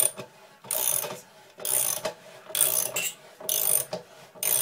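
Ratchet wrench being swung back and forth to tighten a vise screw under heavy load, its pawl clicking in a short burst on each stroke, about one burst a second.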